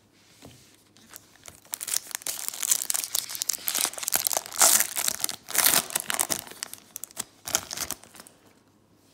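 Wrapper of a trading-card pack being torn open and crinkled by hand, a run of crackling rustles that peaks in the middle.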